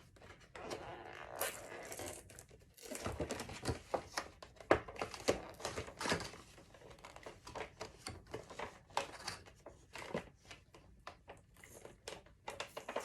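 Tape being peeled and a toy's cardboard-and-plastic box being opened by hand: irregular crinkling, tearing and scraping of packaging.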